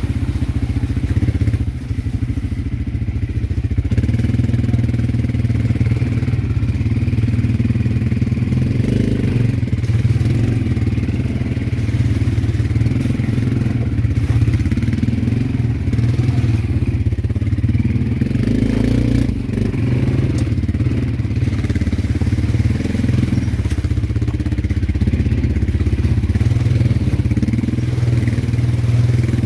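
ATV (quad bike) engine running steadily as it is ridden, with small rises and falls in engine speed.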